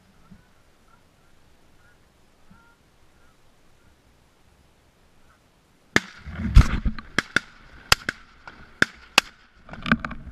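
Geese honking faintly for the first several seconds. About six seconds in, a sudden run of sharp knocks and clicks with low rustling starts, loudest a moment later, as the brush and the camera are jostled.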